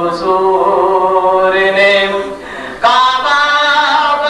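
A man singing a devotional naat into microphones in long, drawn-out melodic phrases; the voice drops away about two and a half seconds in and comes back in loud on a new line.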